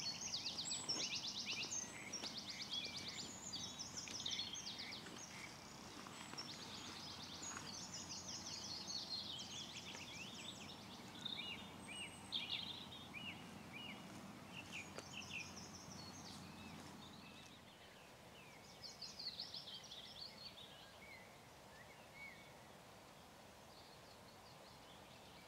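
Several songbirds singing at once, overlapping quick trills and chirps that thin out to a few scattered phrases after about eighteen seconds.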